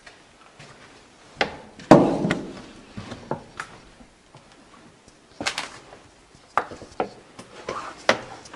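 Doors knocking and banging in a bare room: about a dozen separate thuds and clatters at uneven intervals, the loudest and most resonant about two seconds in, with another cluster near the middle and more near the end.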